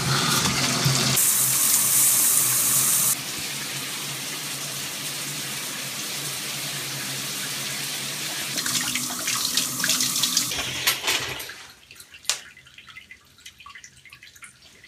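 Water gushing from a shower just turned on at its single-handle valve: loudest and hissiest for about the first three seconds, then running steadily. It stops about twelve seconds in, followed by a few faint drips.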